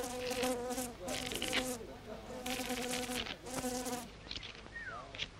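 Four buzzing fart sounds in quick succession, each under a second long, at a steady low pitch with a hissy edge.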